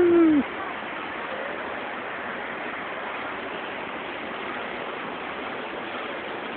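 Steady rushing noise of a moving sky lift ride, mostly wind on the phone's microphone. It opens with a short loud tone that falls in pitch.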